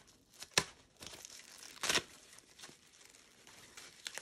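Thin protective wrapping around leather bag straps rustling and crinkling as the straps are handled and pulled out of their packaging. A sharp crackle comes about half a second in and a longer, louder rustle about two seconds in.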